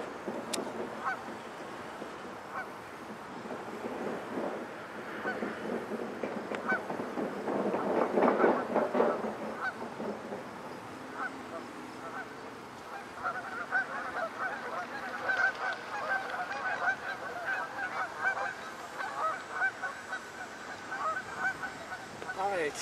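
Geese honking, many short calls in quick succession, crowding together about a quarter of the way in and running on as a steady string of honks through the second half.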